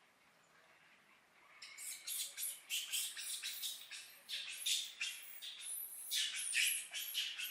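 Baby macaque giving a rapid series of shrill, high-pitched squeals and squeaks, starting about a second and a half in.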